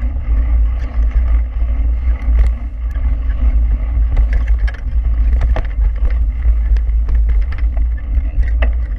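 Wind buffeting the microphone of a handlebar-mounted action camera while a mountain bike rolls fast over a dirt and gravel track, making a steady heavy rumble. Scattered sharp clicks and rattles come from the tyres on gravel and the bike's parts.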